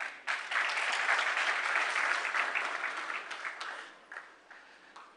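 Audience clapping, starting a moment in and dying away after about three and a half seconds.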